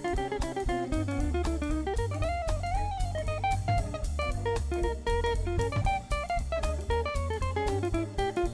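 Background music with a steady drum beat under a bass line and a moving melody.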